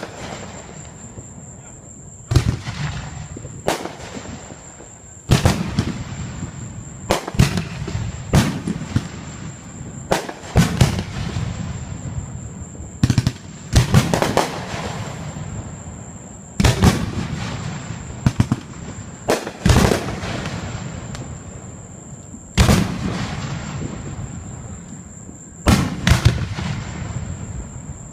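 Aerial fireworks bursting overhead: a loud bang every one to three seconds, each followed by a rolling echo that fades away.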